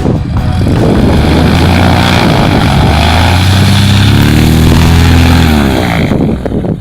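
Cessna 182's piston engine and propeller running loud, its pitch rising about three seconds in and falling again near the end.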